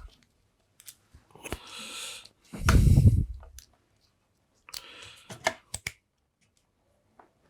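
Handling noises on a workbench: scattered clicks, a short rustle, a dull thump about three seconds in, then more rustling and clicks.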